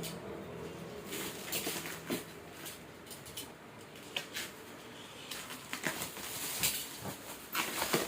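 Scattered rustles and light clicks of things being handled, with a few sharper strokes in the second half.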